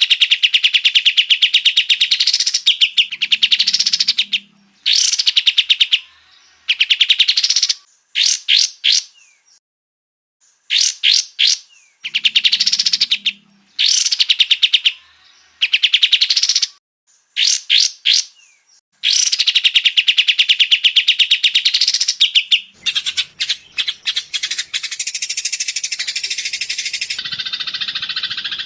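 Songbird song: loud, fast trilled phrases of about a second each, many of them sweeping upward, repeated with short pauses between. About 23 seconds in it gives way to a denser, continuous chattering from another recording.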